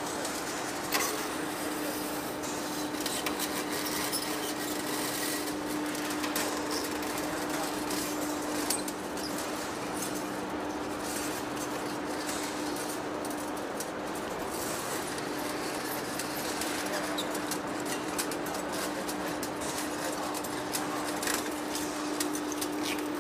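Large metal lathe turning a heavy steel drum while its cutting tool takes a cut: a steady machine hum with one steady tone, overlaid by frequent small crackling clicks.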